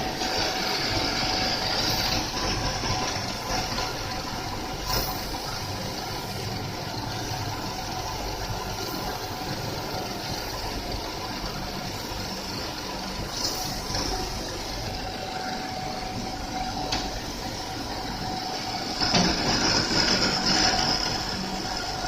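CNC grinding machine running steadily as it grinds serrated teeth into peeler knife blades. A high hissing grind over the machine's drone gets louder for about two seconds near the end.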